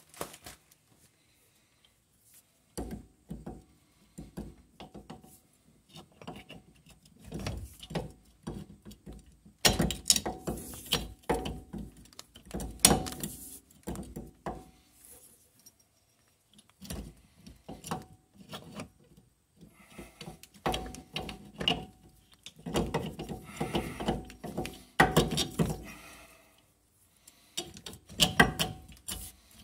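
Irregular metal clunks and knocks from a Subaru Outback's rear CV drive axle being handled and pushed into the rear wheel hub, coming in uneven clusters after a nearly quiet first few seconds.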